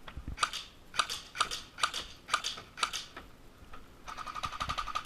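An airsoft rifle clicking: six sharp clicks about half a second apart, then a fast run of clicks for about a second near the end.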